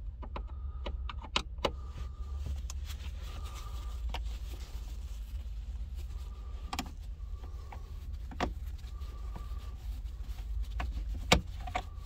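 A Phillips screwdriver backing small screws out of plastic dash trim, with scattered light clicks and rattles and a few faint short squeaks, over a steady low hum.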